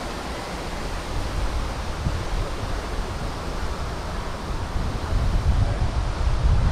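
Outdoor ambience: a steady broad rush with wind buffeting the microphone, the low rumble growing stronger about five seconds in.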